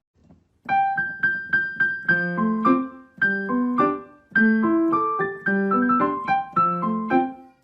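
Background music: a light piano melody of quick, separate notes that starts after a brief gap, less than a second in.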